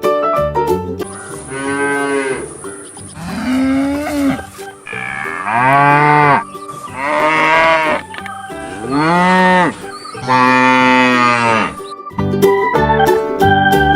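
A cow mooing: a series of about six drawn-out moos, each about a second long and arching up and down in pitch, with organ music before and after them.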